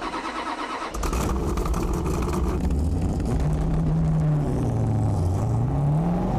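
1970 Dodge Challenger's engine running, getting louder about a second in, with its pitch rising, dipping and rising again as the revs change.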